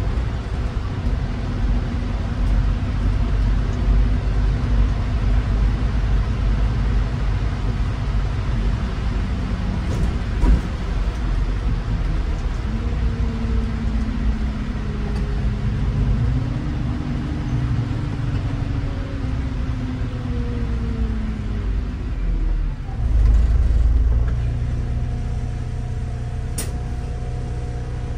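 City bus on the move: a steady engine and road rumble with a drivetrain whine that rises and then falls as the bus speeds up and slows down. There is a knock about ten seconds in and a louder surge of low rumble for a second or so later on.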